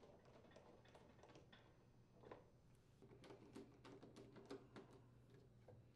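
Faint clicks and light scraping of a hand screwdriver turning screws into a dishwasher's plastic door panel, with a quick run of sharper clicks about three seconds in, over a low steady hum.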